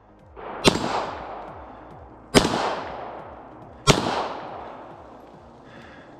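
Three pistol shots, about a second and a half apart, each followed by a long fading echo.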